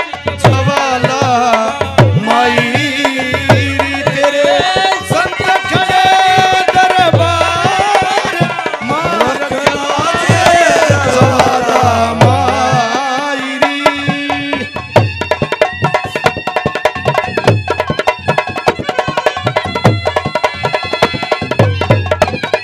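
Haryanvi ragni folk music without words: a hand drum beats a steady rhythm under a wavering melody line, which gives way to held, steady chords about two-thirds of the way through.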